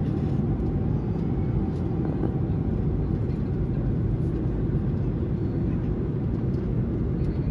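Boeing 737-800 cabin noise in cruise: the steady low rush of the engines and airflow, heard from an economy seat.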